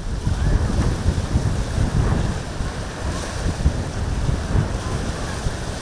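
Wind buffeting the microphone over the wash of a choppy sea, with the cruiser's bow slamming through the waves and throwing spray.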